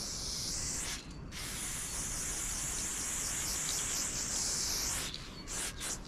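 Aerosol spray paint can spraying in two bursts: a short one ending about a second in, then a long steady hiss of nearly four seconds that stops about five seconds in.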